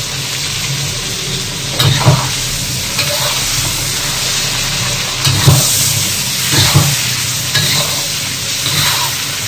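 Fish pieces and chopped chilies sizzling in hot oil in an iron wok over high heat, with a metal spatula scraping and knocking against the wok every second or so as they are stirred.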